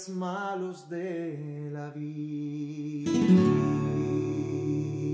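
A man singing a held, wavering line to a nylon-string classical guitar, the voice stopping about a second in while the guitar notes sustain. About three seconds in, a full chord is strummed on the guitar and left to ring, slowly fading.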